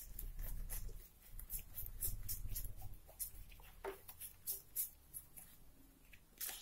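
A deck of playing cards being handled and spread between the hands, giving a series of quick, faint card clicks and flicks. A low rumble runs under the first few seconds.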